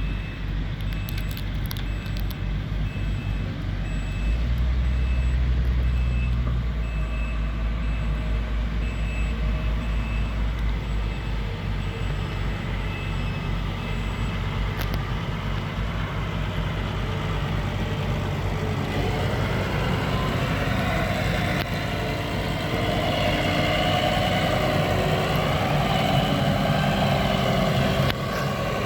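Road roller's diesel engine running steadily, getting louder for about two seconds around four seconds in. A high repeating beep, like a backup alarm, sounds about one and a half times a second through the first half.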